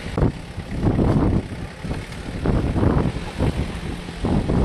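Off-road 4x4 pickup's engine revving in repeated surges, rising and falling about once a second as it pushes through deep mud and water.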